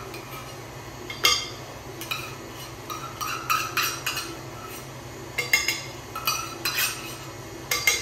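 Metal spoon scraping and clinking against a metal measuring cup, over a dozen irregular sharp clinks, as the last of the pumpkin puree is scooped out.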